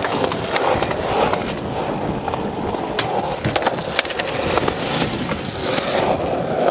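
Skateboard wheels rolling over concrete, a steady rumble broken by several sharp clacks.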